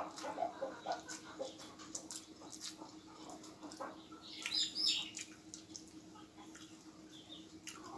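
Close-up chewing and lip-smacking of a man eating rice and meat with his fingers, with fingers working food on a steel plate: a run of short wet clicks and smacks, with a brief louder high-pitched burst about halfway through. A faint steady hum lies underneath.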